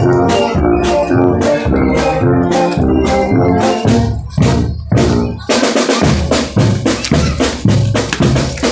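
Marching band playing in a parade: a steady beat of bass and snare drums under a melody of sustained notes. About five and a half seconds in, the melody drops away and the drums and cymbals carry on alone.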